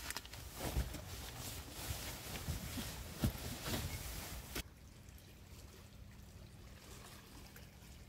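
Synthetic sleeping bag rustling and shuffling as someone turns over and pulls it around herself, with small scraping and crinkling noises. After about four and a half seconds it drops to a quieter steady low hum.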